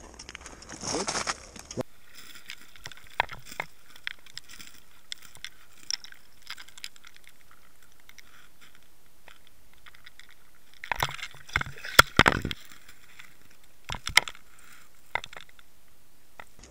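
Audio from an underwater camera lowered on a pole through an ice-fishing hole: a steady faint hiss with scattered clicks, and a cluster of knocks and scrapes about eleven to twelve and a half seconds in, with a few more around fourteen seconds. It opens with a brief rustle of handling before it cuts suddenly to the underwater sound about two seconds in.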